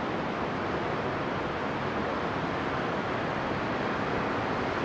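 Steady rushing noise of ocean surf beyond the beach seawall, even and unbroken, with no distinct events.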